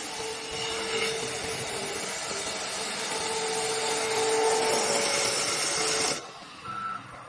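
CNC wood lathe cutting a wooden blank, a loud steady rasping shriek of the cutter on the spinning wood with a whine in it. About six seconds in the cutting stops suddenly, leaving only the quieter run of the machine with a faint high whine.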